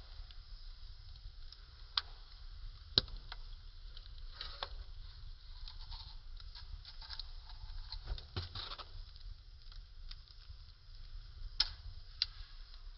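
Fire crackling: irregular small crackles over a low rumble, with a few sharp pops, the loudest about three seconds in and two more near the end.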